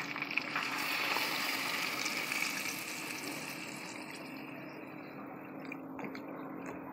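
Water poured into a hot pot of browned goat meat. It runs in and splashes for the first few seconds, then eases to a softer, steady bubbling of the liquid in the pot.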